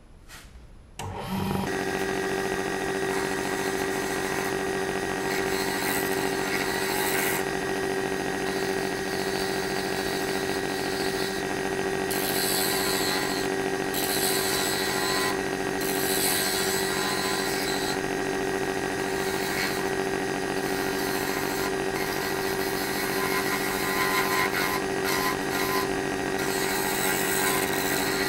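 Small wood lathe switched on about a second in and running with a steady motor whine, while a turning tool cuts the spinning zebrano slimline pen blank. The cutting adds several stretches of hissing scrape on top of the whine.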